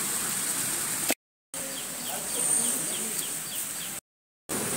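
Steady rain hiss with a bird calling in a quick run of short falling chirps, about five a second, in the middle. The sound drops out twice into brief total silence.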